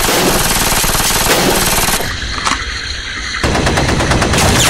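Automatic gunfire in long, rapid bursts. It thins briefly around the middle and comes heavier again near the end.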